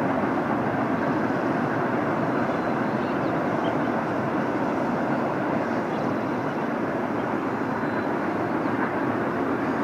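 Freight cars of a BNSF garbage train rolling past, their steel wheels on the rails making a steady, even noise.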